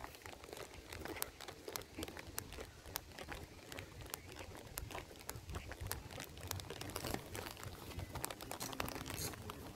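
Footsteps on a gritty asphalt lane: faint irregular crunching with scattered sharp clicks.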